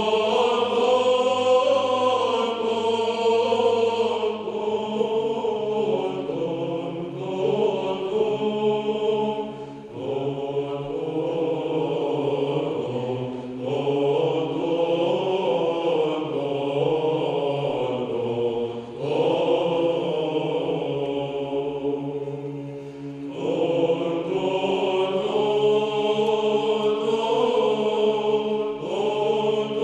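Male choir singing Byzantine chant a cappella. The melody moves in long phrases with short breaths between them, over a low held drone.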